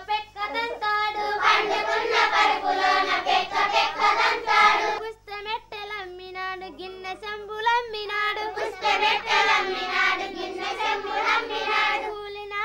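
A group of girls singing a song together in long held notes, the singing growing fuller twice.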